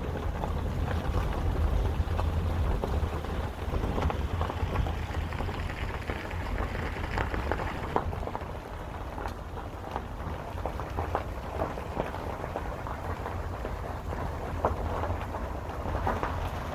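Car driving downhill, heard from inside: a steady low rumble with irregular crackling and ticking from the tyres on the road surface.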